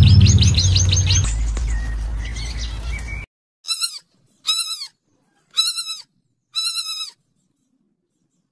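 A rapid run of high, squeaky chirps, about eight a second, over a low hum, stopping about a second in; then, after a sudden cut, piglets squeal four times, short calls about a second apart.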